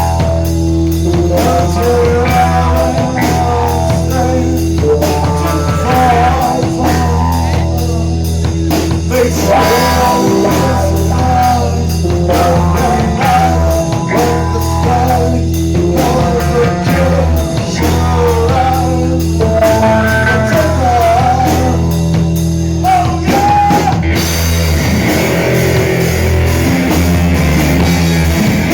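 Rock band playing live: electric guitar, bass and drum kit over a steady heavy low end, with a wavering melody line. About 24 seconds in, the sound turns denser and brighter.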